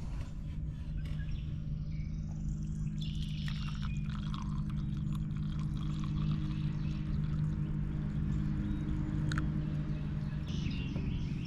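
A steady low mechanical hum, like an engine or motor running, with birds chirping over it.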